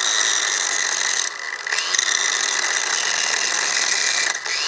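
Ryobi 18-volt 4.5-inch cordless angle grinder with its disc grinding a metal pipe, running with a steady high whine. About a second and a half in and again near the end its sound drops as the disc bogs down under the load, then it winds back up with a rising whine.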